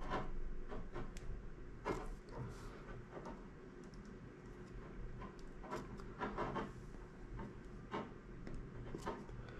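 Handling sounds of a hand crimping tool working a ring terminal onto a wire: scattered small clicks and rubs, with a quick run of short scrapes a little past the middle.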